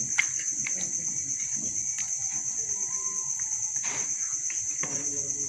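Crickets chirring in a steady high-pitched trill, with faint wet clicks and squelches from hands working yogurt-spice marinade into raw chicken leg pieces in a bowl; one sharper click just after the start and another about four seconds in.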